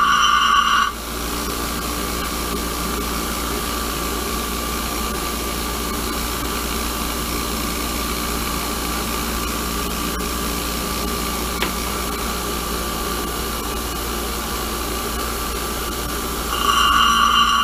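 Bench grinder: a high grinding squeal as steel is pressed against the spinning wheel, stopping about a second in, then the grinder running free with a steady hum. Grinding resumes about a second before the end.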